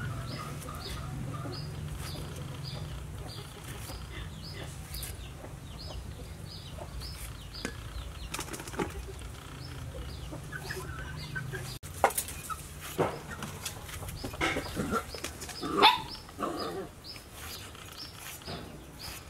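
Kitchen knife slicing wedges off a peeled luffa gourd, the pieces dropping into a steel bowl with short knocks that get louder in the second half. Behind it a high chirp repeats about twice a second over a low steady hum, and the hum stops about two-thirds of the way in.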